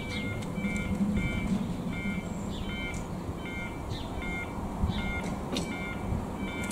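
Level crossing audible warning alarm sounding a rapidly repeating electronic beeping pattern of several pitches, the signal that the crossing is closing for an approaching train.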